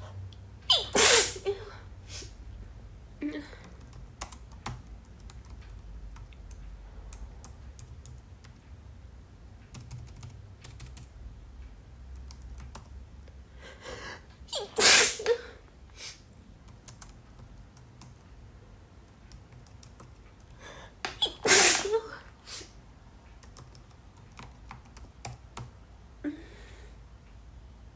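Computer keyboard typing in runs of light keystrokes, broken by a woman's loud sneezes about a second in, around the middle and again near three-quarters of the way through: a sneezing fit from a head cold.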